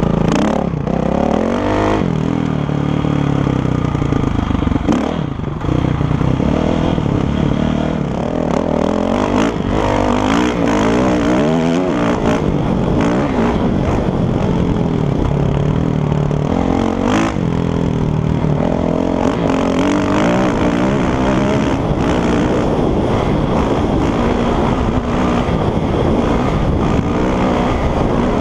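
Kawasaki KX450F single-cylinder four-stroke motocross engine under way, its pitch rising and falling again and again as the throttle is worked, heard from a helmet-mounted camera. A few short knocks come through as the bike rides over rough ground.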